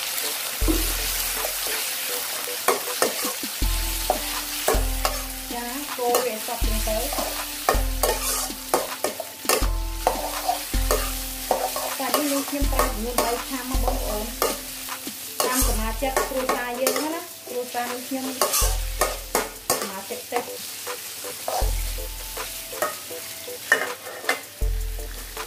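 Sliced pork liver and garlic sizzling in a hot wok with pork fat, stirred and turned with a metal spatula that clacks and scrapes against the pan many times.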